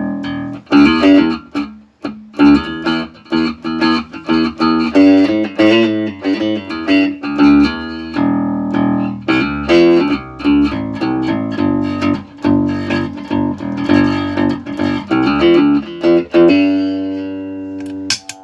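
Electric string instrument played through an Electro-Harmonix Bass MicroSynth pedal: a fast run of picked notes and short riffs, then one longer held note and a sharp click near the end. The pedal, its shorted SMD chips replaced, is passing a synthesised sound again.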